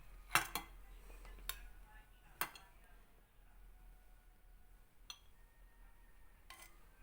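A spoon clinking lightly against a pot or bowl several times as star anise pods are picked out of cooked onion water, with two clinks close together about half a second in and another about two and a half seconds in.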